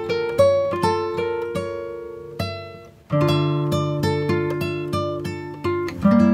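Background music of plucked guitar notes, a picked melody with a brief gap about three seconds in before the next phrase begins.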